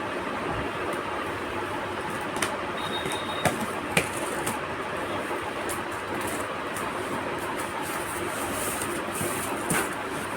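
Steady rumbling background noise, with a few sharp clicks and knocks from a PC cabinet being handled and opened.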